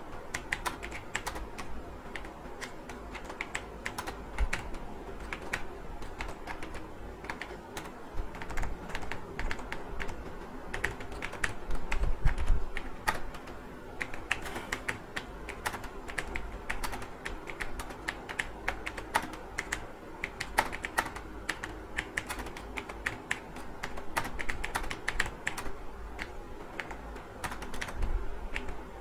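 Computer keyboard typed on quickly and continuously: a dense, unbroken stream of key clicks, over a faint steady low hum.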